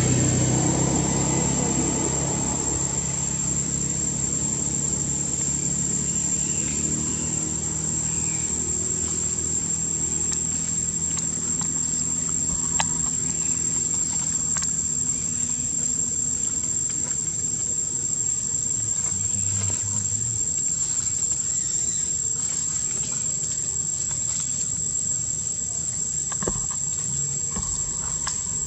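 Insects keeping up a steady high-pitched drone, with a low engine hum fading away over the first several seconds.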